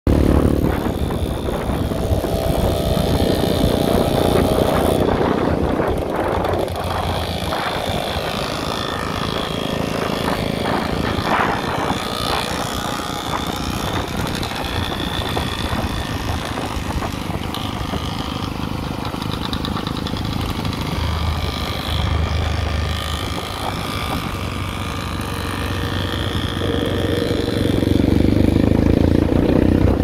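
Dirt bike engines running at riding speed, heard from aboard one of the bikes with its own engine closest, growing louder near the end.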